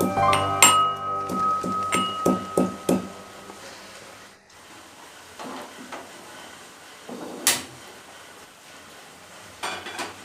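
Piano music for the first few seconds, then quiet kitchen sounds: a low hiss and a few sharp clinks of a utensil against a pot or cup, the loudest a little past halfway.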